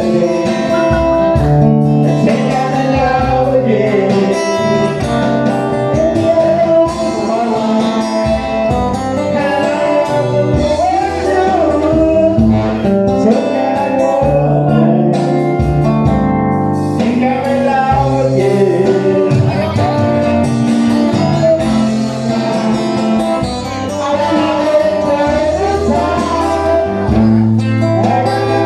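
A live band playing a song, with singing over guitar.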